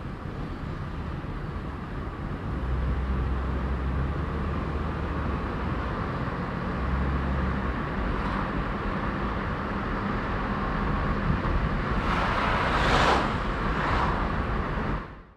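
A car driving on a town road: steady engine and road noise with a low rumble that grows louder a couple of seconds in. There are two louder swells of noise near the end, then the sound fades out quickly.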